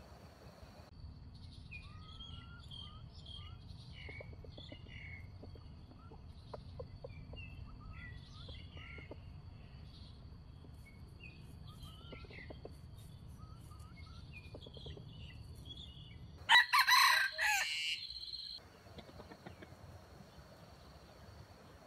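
A junglefowl cock crows once, loud and about two seconds long, about 16 seconds in. Before it, small birds chirp faintly.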